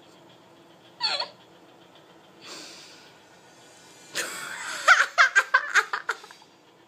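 Laughter: a short high squeal about a second in, then a breathy outburst about four seconds in that breaks into a run of quick bursts of laughing.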